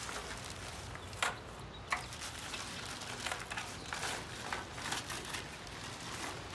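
Ping pong balls being handled and loaded into a shirt front: scattered quiet light clicks and taps as the plastic balls knock together.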